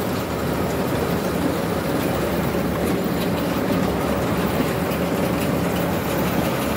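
Concrete batching plant running: a steady mechanical rumble with a constant hum from its conveyor belts and motors as aggregate is moved for weighing and mixing.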